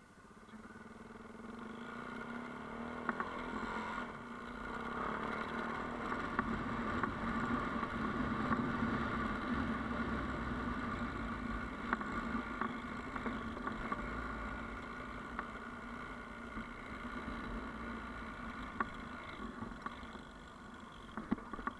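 Yamaha Ténéré adventure motorcycle's engine running under way on an off-road track. It gets louder over the first couple of seconds, then runs steadily, with occasional sharp clicks over it.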